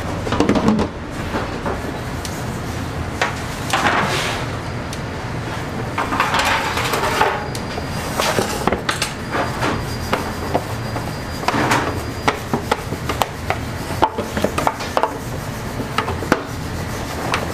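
A clear plastic dough tub being handled on a worktop, with swishes of plastic rubbing and scraping, then a run of small sharp knocks in the last few seconds as it is turned over and set down, over a steady background hum.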